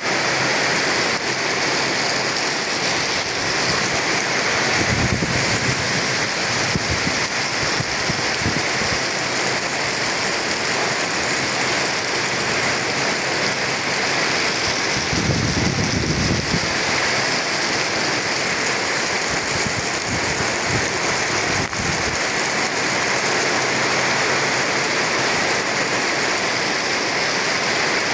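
Heavy rain pouring steadily, a dense unbroken hiss. Twice a low rumble swells up under it for a few seconds.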